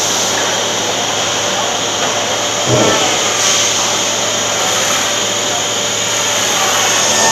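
PUR door-panel laminating line running: steady mechanical hum and hiss of its motors and rollers, with a short louder sound about three seconds in.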